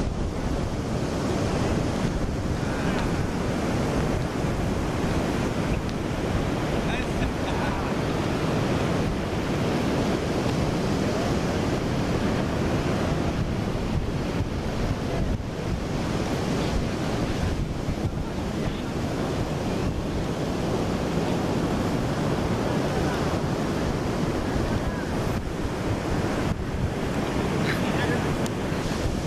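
Steady wind buffeting the microphone over the continuous rush of sea surf on a beach.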